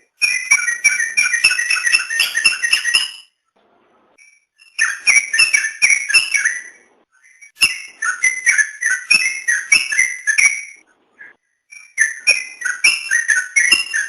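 Trucukan (yellow-vented bulbul) singing in four bursts of rapid, liquid whistled phrases, with short pauses between them.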